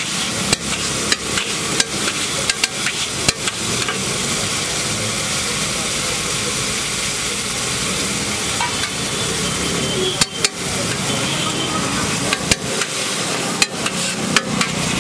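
Egg gravy sizzling on a large flat iron griddle, with a metal spatula scraping and clacking against the iron. The clacks come in quick runs over the first few seconds and again near the end, and the middle is mostly steady sizzling.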